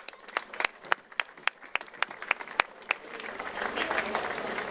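A few people clapping, thinning to a steady beat of about three claps a second that stops about three seconds in, followed by a rising hum of crowd voices.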